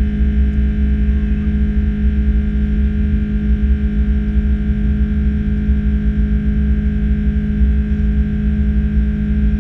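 Steady drone of an Airbus A330-343's Rolls-Royce Trent 700 engines heard inside the passenger cabin: a deep rumble with a constant hum over it, unchanging throughout.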